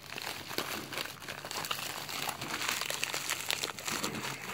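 Packaging being handled and unwrapped by hand: a rustling with many small, irregular crackles.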